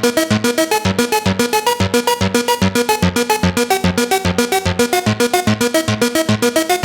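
Korg ARP 2600 FS analogue synthesizer playing a fast, even pattern of short, bright, plucky notes, about seven a second, over a bass line that bounces between low notes.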